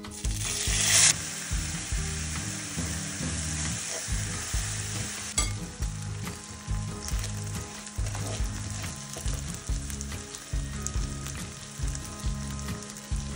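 Orzo and rice toasting in hot fat in a frying pan, sizzling steadily while a wooden spoon stirs them. The sizzle is loudest for about the first second.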